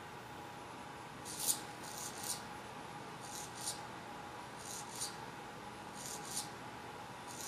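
Small hobby servo motor whirring in short bursts, mostly in pairs, repeating about every second and a half as it sweeps back and forth under Arduino control.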